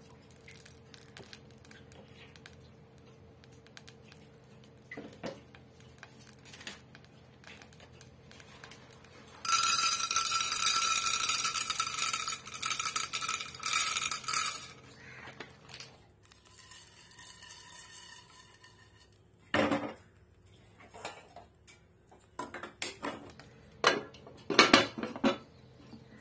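Dried popcorn kernels poured into an aluminium pressure cooker, rattling loudly and making the pot ring for about five seconds, starting about ten seconds in. A spoon scrapes and taps in the pot before, and near the end several metal clanks come as the lid is fitted onto the cooker.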